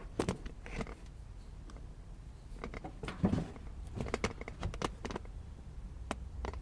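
Irregular clicks, taps and knocks of a camera being picked up, moved and set in place, with a low steady hum underneath.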